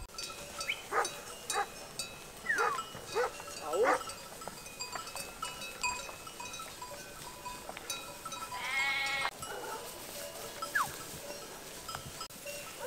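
A grazing flock of sheep bleating: a few short bleats in the first four seconds, then one long, wavering bleat about nine seconds in, which is the loudest sound. Sheep bells clink faintly throughout.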